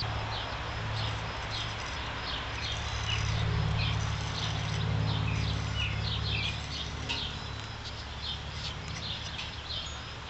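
Opinel No. 9 carbon-steel blade being drawn back and forth across a strop to work the burr off and bring it to shaving sharpness, under a steady low rumble. Frequent short, high chirps sound throughout.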